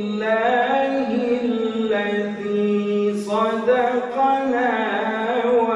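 A man reciting the Quran in a slow melodic chant, Surah Az-Zumar verse 74, drawing out long held notes that bend smoothly in pitch.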